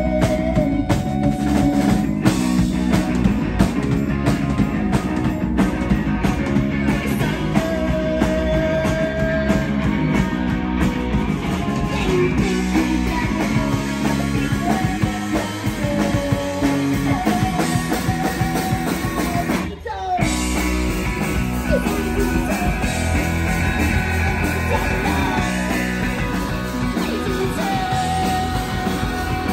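Live rock band playing: electric guitars and a drum kit, with a woman singing. About two-thirds of the way through the band stops for a split second, then comes straight back in.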